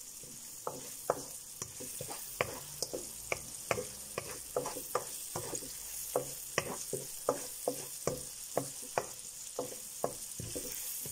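Chopped onions frying in oil with a steady sizzle while a wooden spoon stirs them, its edge tapping and scraping on the pan about twice a second.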